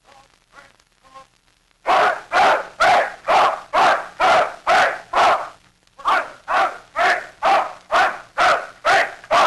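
A dog barking over and over, loud sharp barks about two a second, in two runs of about eight with a short pause about halfway.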